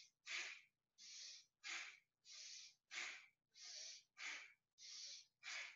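Bhastrika (bellows) breathing: rapid, forceful breaths in and out, heard faintly. A longer, softer breath alternates with a short, sharp one, about one in-and-out every second and a third, in a steady rhythm.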